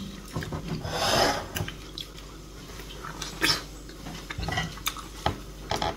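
Eating sounds of a person biting, sucking and chewing soft mango flesh: wet mouth noises with one longer slurp about a second in and scattered lip and tongue clicks.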